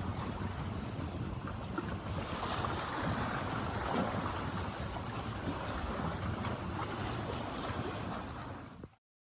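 Wind blowing across the microphone over waves washing on the water, with a steady low rumble underneath. The sound cuts off abruptly near the end.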